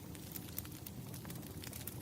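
Wood fire crackling: a steady low rumble of burning logs with scattered small sharp pops and snaps.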